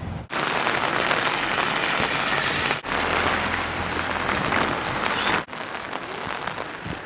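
Steady hiss of rain falling on wet paving, in three short stretches with abrupt cuts between them.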